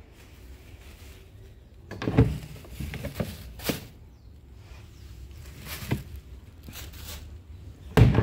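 Black plastic trash bin being handled: a loud knock about two seconds in, a few lighter knocks and rattles, and another loud knock near the end as the lid is dropped shut.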